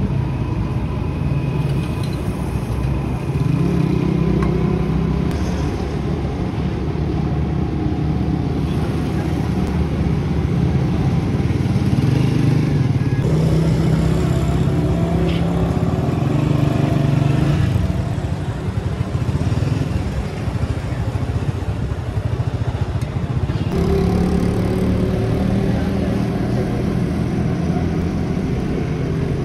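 Road traffic dominated by small motorcycle engines running, their pitch rising and falling.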